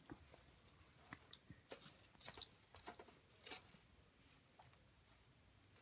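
Near silence, with faint, scattered light taps and clicks of small paper and cardboard doll-food items being handled.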